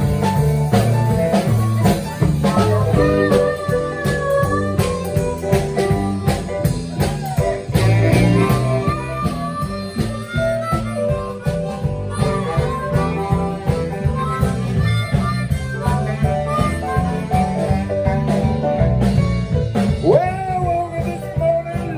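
Blues band jamming live: an amplified harmonica, played with the microphone cupped in the hands, carries the melody with held, wavering notes and a pitch bend near the end, over keyboard, guitar, bass and a steady drum beat.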